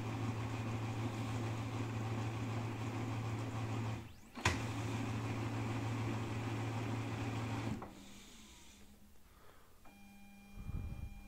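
Lexmark MB2236adw multifunction laser printer running its power-on self-check: a steady mechanical motor hum that drops out briefly about four seconds in with a click, runs again, then stops near eight seconds, leaving only a faint electrical hum.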